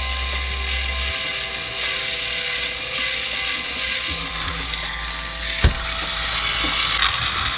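Battery-powered Trackmaster toy train engine running: a small electric motor whirring and plastic gears clicking steadily, with one sharp knock near the end.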